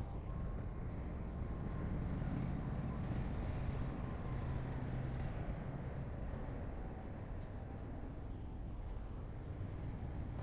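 Heavy diesel engine of earthmoving machinery running steadily. It grows a little louder about two seconds in and eases off after about four seconds.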